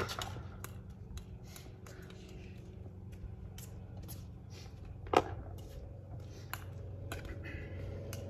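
Light footsteps and shoe scuffs on a hard outdoor pickleball court, with one sharp hard-plastic pop of a pickleball about five seconds in, over a steady low hum.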